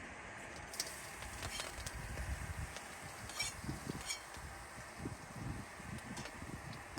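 Oil sizzling in a pan as thirteen-spice powder fries in it, which the cook says has started to burn, with a few short clinks of a utensil against the pan.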